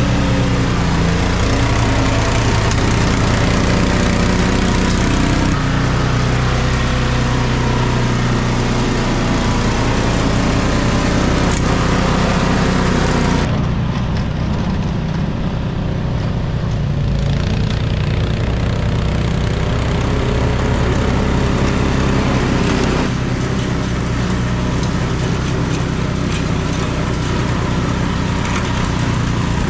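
An engine running steadily, with its sound changing abruptly about a third of the way in, near the middle and again later.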